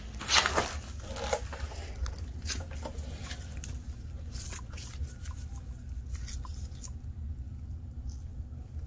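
Handling noise of tools and metal parts on a workbench: a short scraping rustle about half a second in, then scattered light clicks and clinks, over a steady low hum.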